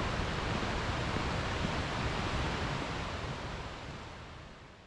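Steady rushing of a mountain stream, fading out over the last couple of seconds.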